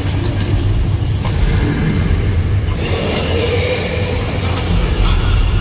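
Loud soundtrack of a wraparound-screen ride show: deep, continuous rumbling and crashing effects for a giant dinosaur stomping and roaring.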